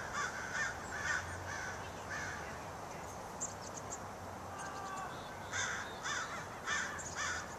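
Bird calls: short, repeated calls in runs of three or four, at the start and again from about five and a half seconds in, over a steady background hiss.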